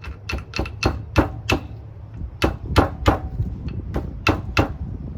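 Hammer tapping on the Honda CR-V's CV axle, driving the center joint along the splined shaft: about a dozen sharp metallic strikes, six quick ones, then two groups of three.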